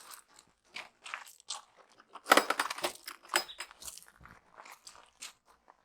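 Packing material being handled during an unboxing: irregular crunching and rustling, loudest about two and a half seconds in.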